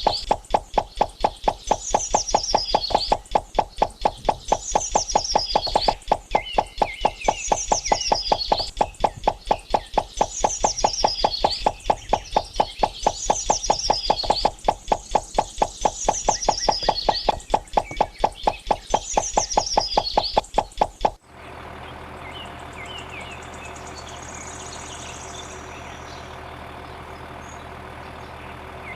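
Rapid, even knocking, about four a second, with a short falling chirp repeating about every two seconds, which stops abruptly about 21 seconds in and gives way to a quieter steady noise with a low hum.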